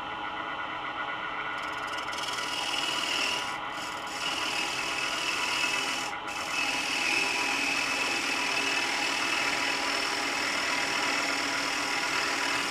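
Carbide scraper shaving the inside of a bore in a wooden wheel blank spinning on a Laguna Revo 12/16 wood lathe: a continuous scraping hiss of wood being cut, easing off briefly twice, about 3.5 and 6 seconds in. These are light cuts to widen the hole a little for a snug fit.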